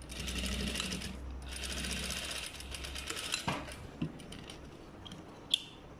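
Electric sewing machine stitching a shoulder seam in two quick runs of about a second and a half each, with a brief pause between, then stopping. A few light clicks of handling follow.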